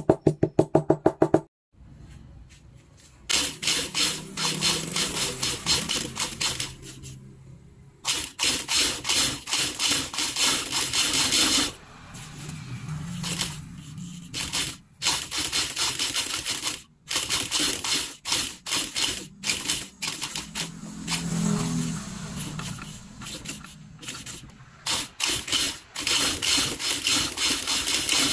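Industrial leather sewing machine stitching a shoe upper, its needle clattering rapidly in runs of several seconds with short stops between them. Just before that, a quick series of light hammer taps on the leather.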